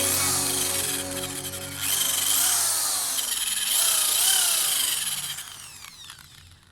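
A power tool working with a hissing, grinding sound whose pitch sweeps up and down, fading out near the end, over background music.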